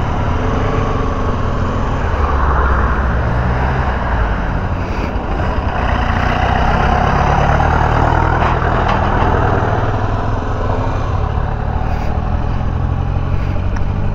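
Honda XRE 300 motorcycle's single-cylinder engine running while riding, with loud, steady wind and road noise on the camera microphone.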